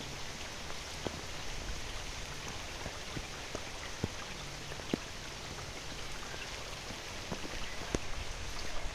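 Steady rain falling during a hurricane, with a few sharper taps of drops landing close by.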